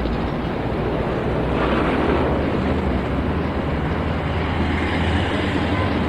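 Busy main-road traffic: a continuous low rumble of engines and tyres, swelling briefly about two seconds in as a vehicle passes close.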